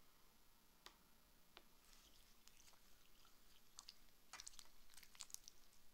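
Faint sticky clicks and crackles of slime being squished and pulled by hand: a few lone ticks at first, then denser crackling from about four seconds in.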